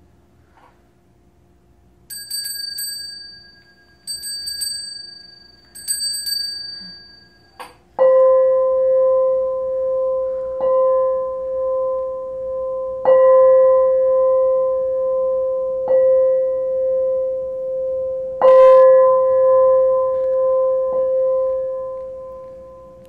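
Three short, high metallic rings about two seconds apart, then a hanging gong struck six times with a felt-headed mallet, every two to three seconds. Each stroke rings on in a steady tone and fades out near the end.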